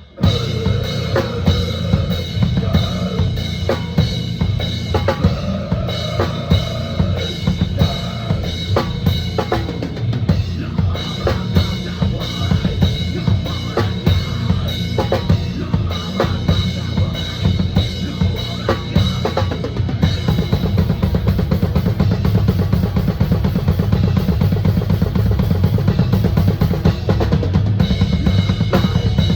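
Drum kit played hard in deathcore style: heavy kick drum with snare hits and cymbals. About twenty seconds in, the beat turns into a fast, even run of strikes.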